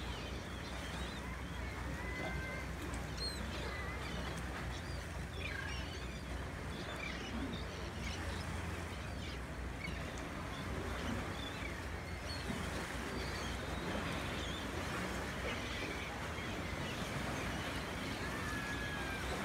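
Steady low drone of a shrimp trawler's diesel engine running, with many short bird chirps and whistles over it.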